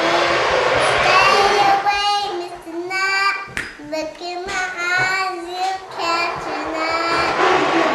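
A young girl singing, holding long high notes that slide up and down in pitch.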